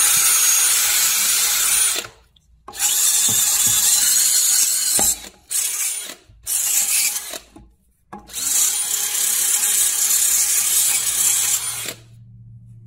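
Power drill run in five bursts of one to four seconds with short pauses, the last one long, cleaning dirt and corrosion off a wheel hub so that a centring ring will seat.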